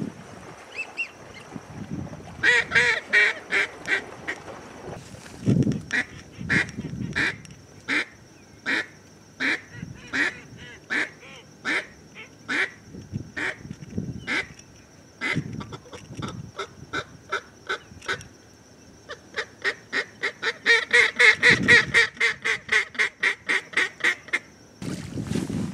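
A duck call blown by a hunter. It gives a quick run of quacks, then single quacks at an even pace, then a faster, louder run of quacks near the end.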